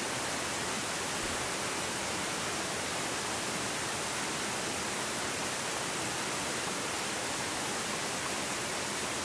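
Rushing water of a rocky stream: a steady, even hiss with no breaks or changes.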